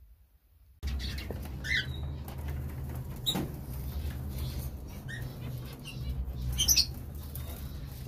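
Short, shrill chirps from caged lovebirds, scattered a few times over a steady low rumble that starts about a second in. A sharp click sounds about three seconds in.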